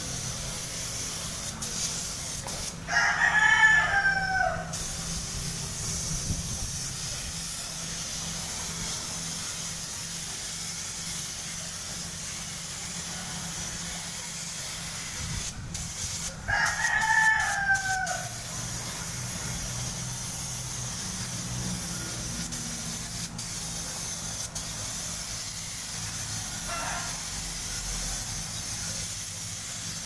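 A rooster crowing twice, about 3 seconds in and again around 17 seconds, each crow about two seconds long and falling in pitch at the end, with a fainter crow near the end. Under it runs the steady hiss of compressed air from a gravity-feed paint spray gun.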